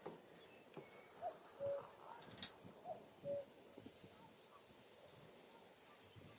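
Common cuckoo calling at a distance: two faint "cuck-oo" calls about a second and a half apart, each a higher note dropping to a lower one.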